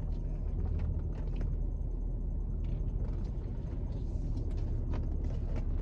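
Car running, a steady low rumble heard inside the cabin as it moves off, with a few light clicks.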